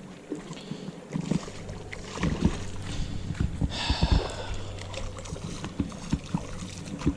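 River water splashing and sloshing, with irregular knocks and bumps.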